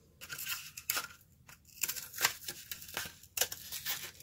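Scissors snipping their way around a cardboard tube: a run of short, crisp cuts with brief pauses between them.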